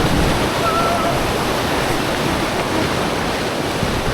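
River water rushing steadily around a raft on white water.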